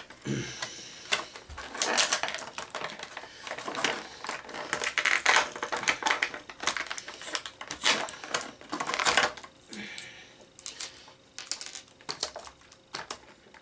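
Hands working an action figure free of its plastic packaging: an irregular run of clicks, crackles and rustles of stiff plastic and cardboard, coming in uneven bursts.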